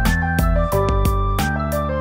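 Instrumental background music with a steady beat of about three strikes a second under sustained held notes.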